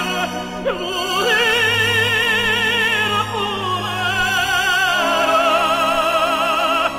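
Operatic tenor singing long held notes with a wide vibrato over a sustained accompaniment. There is a brief break with a quick slide in pitch less than a second in, and another near the end.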